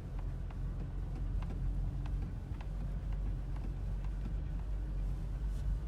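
Inside a moving UAZ Patriot's cabin on a field: steady low rumble of the engine and running gear, with irregular light knocks and rattles several times a second. These are the cabin knock at the rear left that has long bothered the owner.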